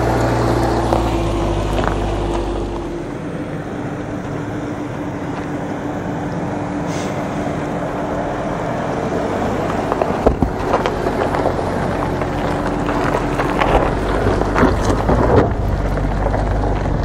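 The turbocharged 2.4-litre flat-four of a 2022 Subaru Outback Wilderness running at low speed as the car crawls over a steep rocky dirt trail. Its tyres crunch over gravel and rocks, with a cluster of sharper knocks about ten to fifteen seconds in.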